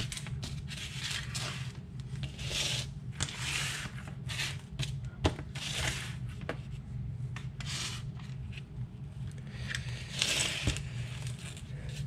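Hand tools and battery packs being slid, picked up and set down on a cardboard-covered workbench: irregular scraping and rustling with a few sharp clicks, over a steady low hum.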